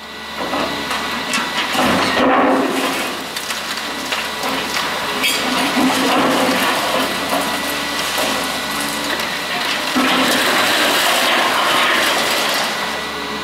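Liebherr R944 high-reach demolition excavator's bucket breaking into a concrete building: concrete and debris cracking, crunching and crashing down over and over, with the machine's engine and hydraulics running steadily underneath.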